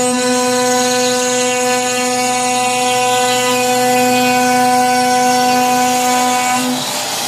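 CNC router spindle milling a laminate board, a steady whine. Near the end the whine drops away and a rushing noise takes over.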